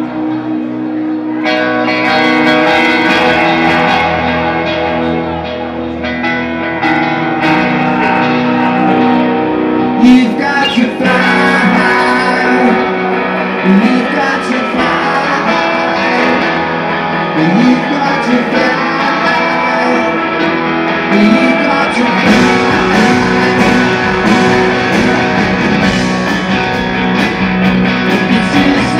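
Live rock band performing, heard from the audience: electric guitars play the song's intro, and the band comes in fuller and louder about three-quarters of the way through.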